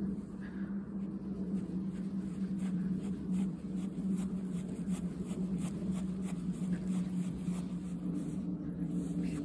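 Footsteps on grass, about two a second, over a steady low hum.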